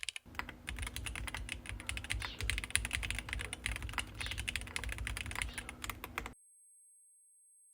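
Fast typing on a Neson N6 mechanical keyboard with TTC switches: a quick, dense run of keystrokes with a deep thock under the clicks. It cuts off suddenly about six seconds in, leaving only a faint, steady high-pitched tone.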